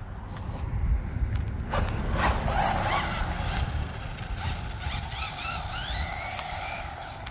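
Electric RC touring car's 550 brushed motor and gear drive whining during a run, the pitch rising in short repeated glides from about two seconds in as the car accelerates. A low rumble runs underneath.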